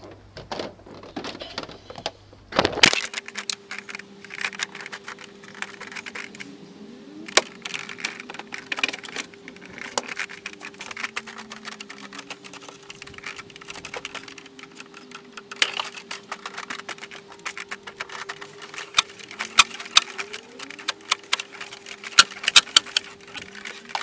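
Irregular sharp clicks and light knocks, growing denser toward the end, from a Suzuki Hayabusa being rocked on its front suspension with the front brake held: the forks are being pumped to settle a newly refitted front wheel and axle before the clamp bolts are tightened. A faint steady hum runs underneath from about three seconds in.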